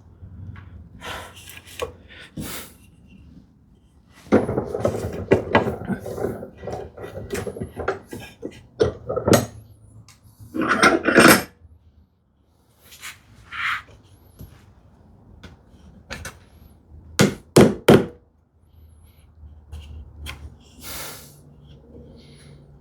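A small wooden filler piece is test-fitted into a groove, with scattered knocks and thunks of wood against wood. A few seconds of continuous handling and rubbing noise come about four seconds in, and two sharp knocks fall past the middle.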